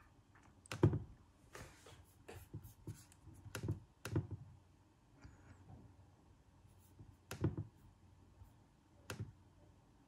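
Scattered light clicks and taps of a MacBook Air's keys and trackpad under the fingers, irregular, with pauses between them.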